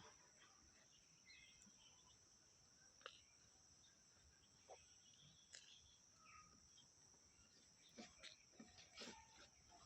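Near silence: a faint, steady high-pitched drone, like crickets, with a few scattered soft clicks, more of them near the end.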